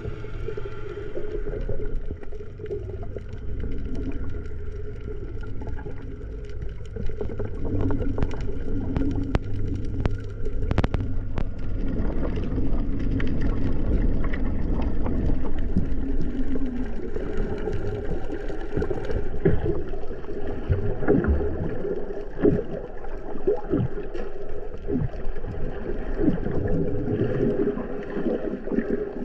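Muffled underwater sound heard by a camera below the surface: a low rumble of moving water with scattered sharp clicks, louder clicks and bubbling near the end. A low steady hum runs through the first half.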